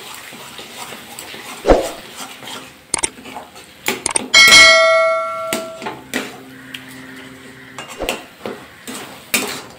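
Metal spatula scraping and stirring thick mashed taro leaves in a metal kadai, with scattered knocks against the pan. About four and a half seconds in, a sharp metal clang rings on for about a second.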